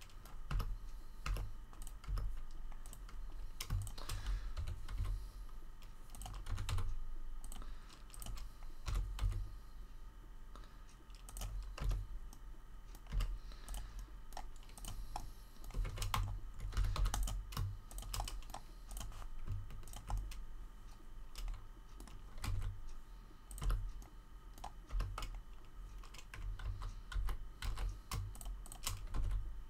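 Computer keyboard being tapped in short, irregular runs of key presses, with dull low thuds among the clicks.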